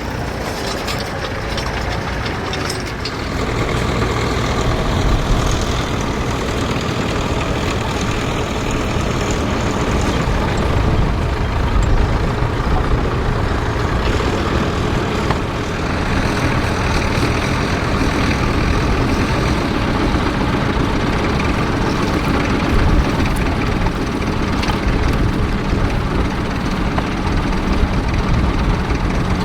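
Vintage farm tractor engine running steadily, working a trailed plough; it gets louder about three to four seconds in and then holds steady.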